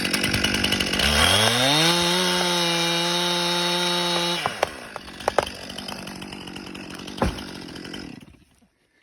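Two-stroke chainsaw running hard, revving up to full throttle about a second in and holding there, then dropping back to idle. A few sharp cracks and a low thump come while it idles, and it cuts off near the end.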